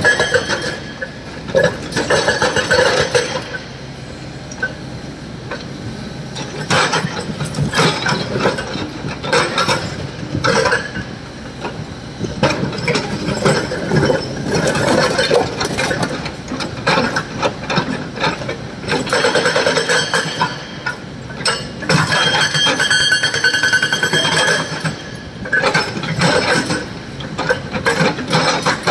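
Hydraulic rock breaker on a Kobelco excavator hammering quarry rock: rapid rattling blows in several bouts of a few seconds each, with short pauses between.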